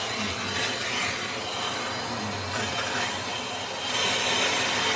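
Plumber's torch flame hissing steadily as it heats a copper pipe joint for soldering.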